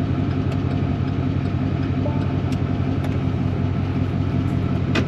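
Semi truck's diesel engine idling steadily, with a few light clicks.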